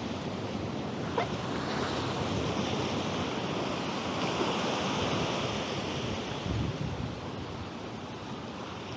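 Ocean surf washing and churning against a rocky shoreline, swelling about two seconds in and easing off toward the end, with wind on the microphone.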